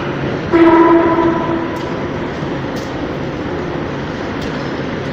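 A loud, steady-pitched, horn-like moaning tone that sets in about half a second in and holds for about a second. It then fades to a fainter tone over the steady rumble of a metro station. Its source is unexplained: the recordist suspects the escalator.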